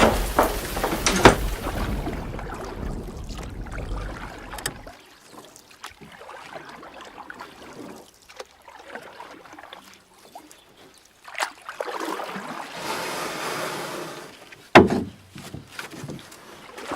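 Storm sound effects: rain and rumbling thunder that die away about five seconds in. Quieter water sounds follow, with scattered knocks and one sharp, loud knock near the end.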